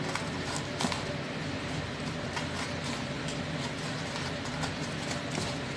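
Tofu cubes rolled by hand in dry breadcrumbs in a plastic tub: faint crumbly rustles and a few light clicks over a steady low kitchen hum.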